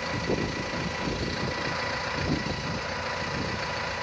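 Claas tractor's diesel engine idling steadily, with a faint steady high whine over the low rumble.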